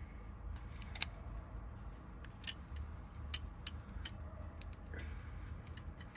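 Small, sharp metal clicks and ticks at irregular intervals from a Honda door lock cylinder and its tiny wafers being handled and picked at during recoding, over a steady low hum.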